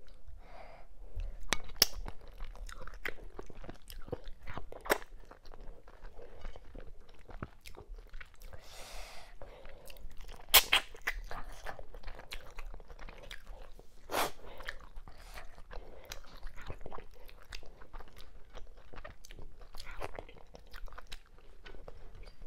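Close-miked chewing and wet mouth clicks from eating mackerel and cow skin in okra-ogbono soup with the fingers, with a few sharper crunches, the loudest about halfway through.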